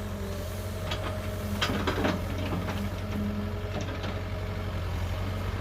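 Kobelco excavator's diesel engine running steadily under hydraulic load, with several sharp cracks and knocks as it breaks down melaleuca trees.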